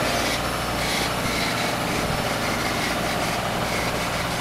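Pro-Tech bench grinder running with a soft stainless steel wire wheel, a steady motor hum under a scratchy hiss that comes and goes as a piece of cast stone is pressed against the spinning brush to scrub off its red surface.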